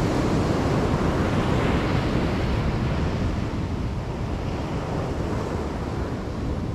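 Ocean surf washing up the beach, with wind rumbling on the microphone; the wash is louder at first and slowly eases off.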